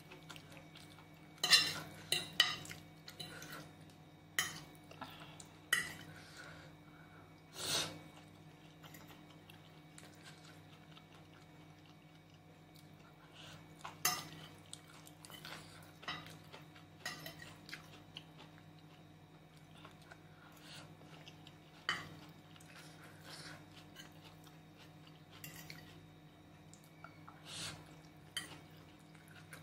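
Metal fork clinking and scraping against a ceramic plate while picking up noodles: a quick run of sharp clinks about two seconds in, then single clinks now and then.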